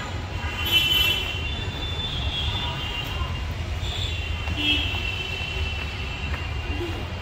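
Outdoor traffic ambience: a steady low rumble with short high-pitched squeals recurring every second or so, the loudest about a second in.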